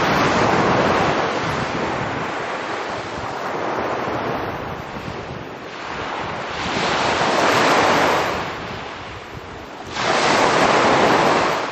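Small sea waves breaking and washing up on the shore. They come in surges: one at the start, another swelling about seven to eight seconds in, and a sudden one about ten seconds in.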